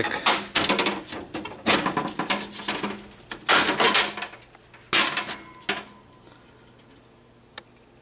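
Clattering and scraping handling noises of a wall air conditioner's plastic and metal front grille and cabinet, in irregular bursts over the first six seconds, then quiet apart from a single click near the end.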